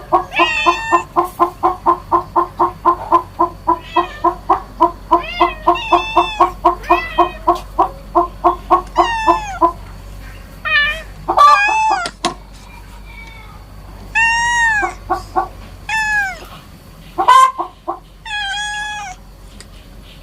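A chicken clucking in a fast, even run of about three to four clucks a second, which stops about halfway through. Then comes a series of separate kitten meows, each rising and falling in pitch.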